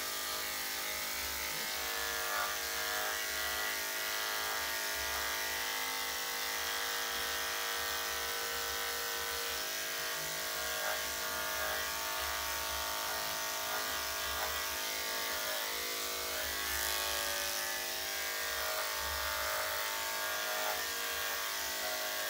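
Electric dog grooming clippers with a #10 blade, running with a steady hum as they shave a small dog's coat close.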